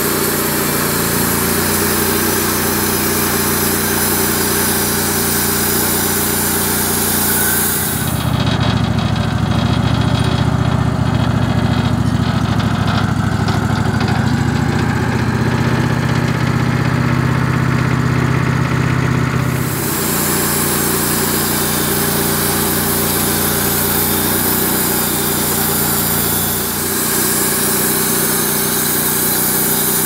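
Wood-Mizer LX150 portable bandsaw mill running, its engine driving the band blade through a red oak log. About eight seconds in, the hissing top of the sound drops away and a deeper, stronger engine hum takes over for roughly eleven seconds, then the higher sound returns.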